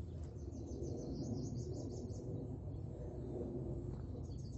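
A high, rapid chirping trill of about seven pulses a second, lasting about two seconds, then starting again near the end, over a steady low rumble.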